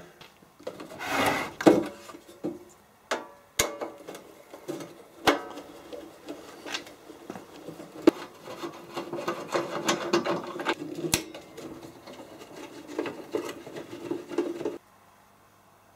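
Hands and a screwdriver working the sheet-metal side cover of a Clarke MIG 160EN welder loose: a loud clatter about a second in, then scattered sharp metallic clicks and knocks with scraping and rubbing of the panel.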